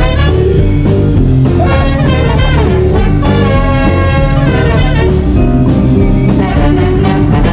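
Swing band playing live: saxophone, trumpet and trombone over electric bass, guitar and drum kit, in a steady up-tempo jazz groove.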